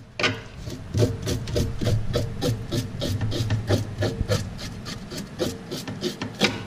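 Kitchen fork scraping scales off a whole fish on a plastic cutting board in a steel sink: quick, rhythmic rasping strokes, about three or four a second, worked from tail to head.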